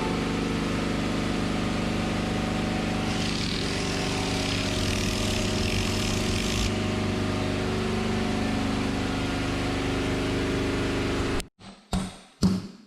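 An engine running steadily at an even speed, with a hiss joining in for a few seconds in the middle. It cuts off abruptly near the end, followed by two sharp knocks.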